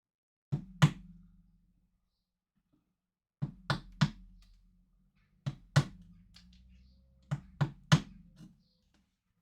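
Sharp knocks in four quick groups of two or three hits, each group followed by a brief low ringing.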